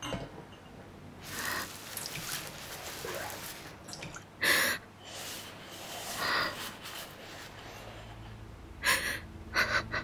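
A woman sobbing, with short, uneven gasping breaths in separate bursts that come every second or two.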